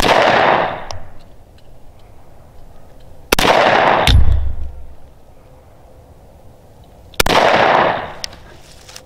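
Zastava M57 Tokarev pistol in 7.62x25 fired three times, slow single shots about four seconds apart. Each sharp report trails off in echo for about a second, and a low thump follows the second shot.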